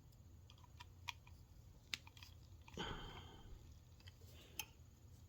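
Faint small clicks and ticks of hand work on a metal sunglasses frame, with a brief soft rustle about three seconds in.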